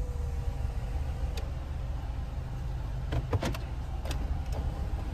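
Car idling, heard from inside the cabin as a steady low rumble, with a few light clicks about three to four seconds in.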